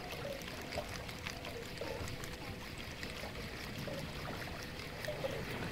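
Water lapping and splashing against a small boat's hull, a steady wash with scattered light ticks.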